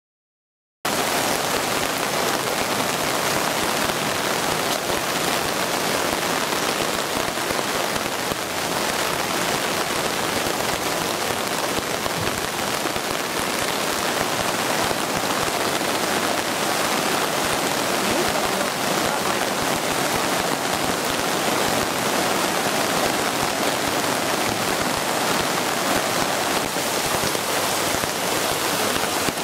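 Heavy rain falling steadily on flooded ground, a continuous hiss mixed with the wash of running floodwater, cutting in suddenly about a second in.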